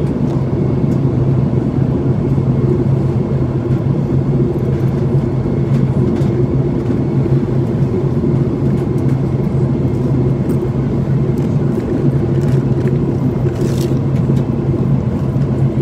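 Boeing 737-800 cabin noise on descent: the steady, low drone of its CFM56-7B engines and rushing air, heard from inside the passenger cabin.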